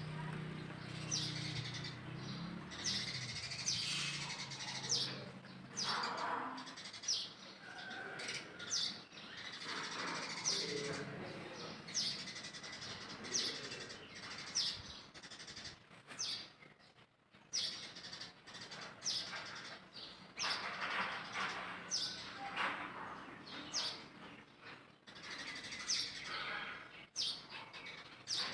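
A bird chirping over and over: short, high, falling chirps about once a second, with softer rustling and calls underneath.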